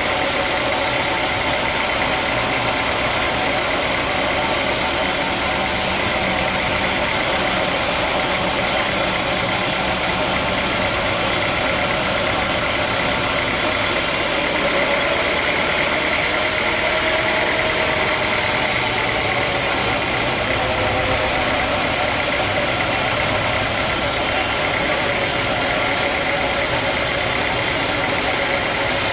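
Sawmill machinery running steadily: an engine-driven saw's constant mechanical noise with a steady high whine over it.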